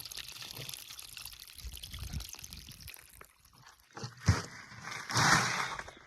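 Water pouring and trickling, fading out about three seconds in; a sharp knock a little after four seconds, then a short rush of noise near the end.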